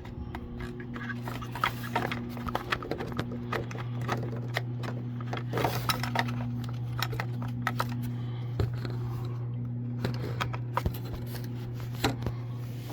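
Small clicks and taps of hard plastic parts being handled and pushed into place as a water-heater pressure relief valve is fitted by hand, over a steady low hum.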